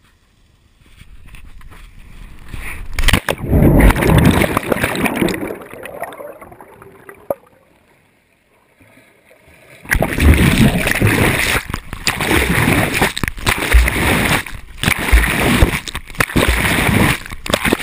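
Cliff jump into a creek pool heard on a handheld GoPro: a rushing noise builds during the fall, then a loud splash of water entry about three seconds in, followed by muffled underwater churning that fades almost to silence. About ten seconds in the camera breaks the surface and loud splashing and sloshing of water follows as the jumper swims.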